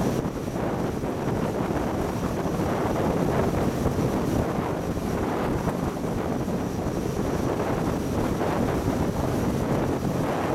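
Wind buffeting the microphone over the steady rush of spray and bow wave tearing along the hull of a water-jet fast supply vessel running at speed.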